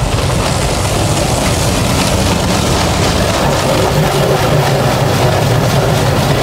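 Automatic car wash machinery running, heard from inside the car: a steady, loud low hum with a hiss of water spraying over the car.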